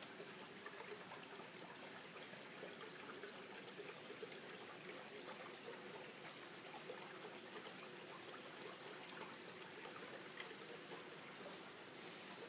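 Faint, steady trickling of water from a garden water feature, with small scattered drips.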